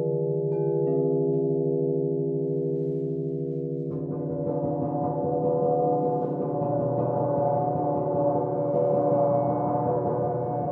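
Crystal singing bowls ringing in steady, sustained tones; about four seconds in a gong is struck and its shimmering wash swells over the bowls.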